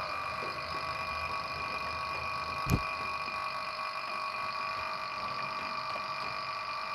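Steady whine of several fixed high tones inside a submarine compartment, with one low thump almost three seconds in.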